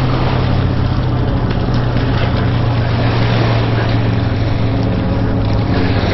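A steady low motor-like drone with a dense hiss over it, unchanging in level.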